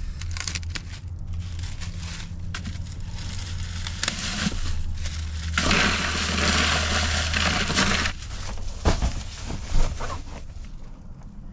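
Bagged ice crunching and crackling in its plastic bag as it is loaded into a hard-sided cooler, for about two and a half seconds from around halfway in, over a steady low hum. A couple of sharp knocks follow near the end.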